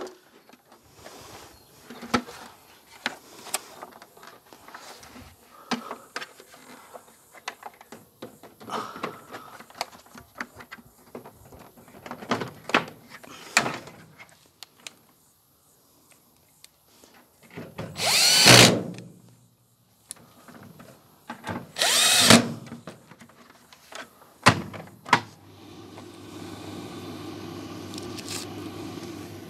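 A power drill runs twice briefly, a few seconds apart, in the second half, among light clicks and knocks of parts being handled at a tumble dryer's door. A steady low hum starts near the end.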